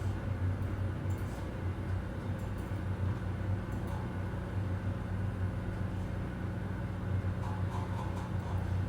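Office ambience: a steady low hum, with a second low tone joining a couple of seconds in, and scattered faint clicks over it.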